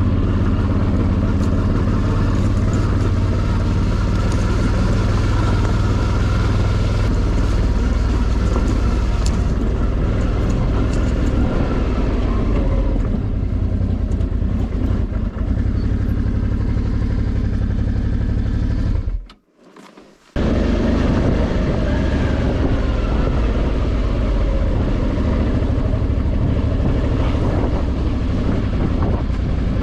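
Suzuki V-Strom 650's V-twin engine running steadily as the motorcycle rides on. The sound drops out for about a second about two-thirds of the way through, then carries on unchanged.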